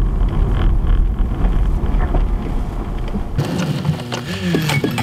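Steady low rumble of a car's cabin while driving on a wet road, as picked up by a dashcam. A little over three seconds in it cuts abruptly to a different sound of gliding tones and sharp ticks.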